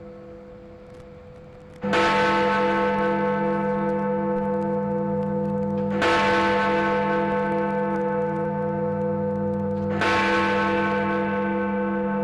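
Big Ben, the Great Bell in the Elizabeth Tower, striking the hour at noon. It opens on the fading hum of an earlier stroke, then three hammer strikes follow about four seconds apart, each ringing on with a long, pulsing hum under the next.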